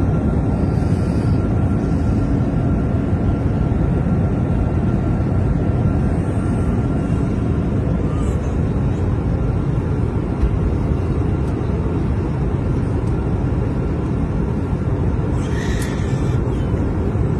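Airliner cabin noise: a steady, dense low roar with a faint constant tone in it. A brief higher-pitched sound comes in near the end.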